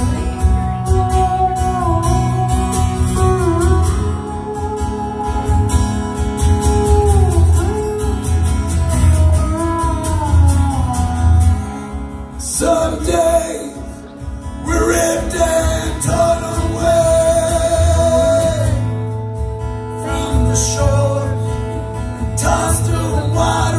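Acoustic guitar strummed live, with a man singing along in a melody that bends and slides.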